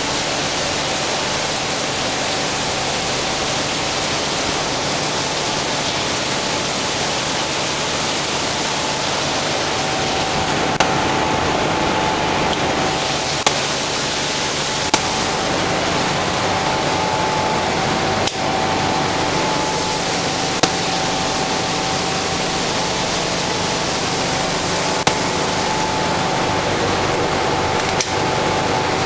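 Ice plant machinery, plate ice machine and refrigeration equipment, running: a loud, steady rushing noise with a faint steady hum and a few sharp ticks.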